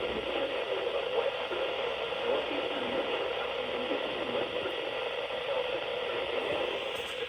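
Steady static hiss from a NOAA Weather Radio receiver on a weak signal, with no intelligible voice coming through.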